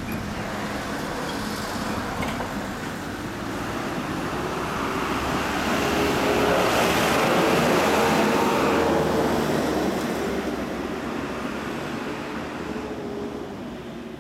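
Yamaha Cygnus-X scooter's 125 cc single-cylinder four-stroke engine idling steadily through an HPM aftermarket exhaust. The running noise swells to its loudest about halfway through and then fades.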